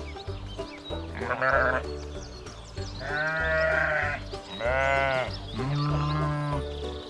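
Sheep bleating four times, each call lasting under a second, over background music with a steady beat.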